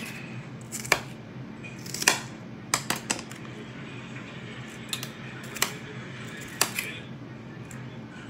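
Kitchen knife chopping on a cutting board: sharp, irregular knocks, about nine of them with a cluster of three near the three-second mark, over a low steady hum.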